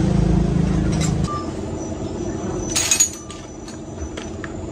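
A steady engine hum that stops about a second in, followed by scattered light metallic clinks and one short, louder rattle near the middle.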